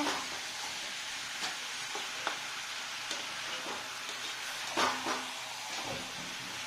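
Chicken sizzling as it fries in oil in a pan: a steady hiss, with a few short knocks, the loudest about five seconds in.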